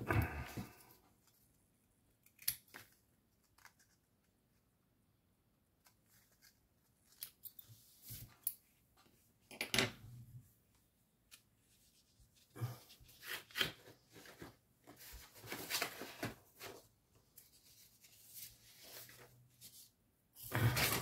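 Scissors snipping paper in short, scattered bursts, with light paper handling between cuts and a few quiet gaps.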